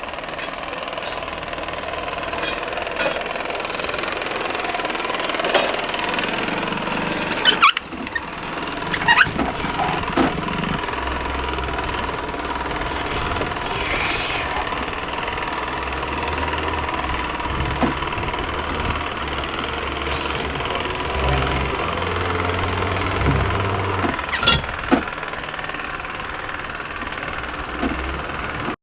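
Engine running steadily, with a few sharp knocks and thumps over it.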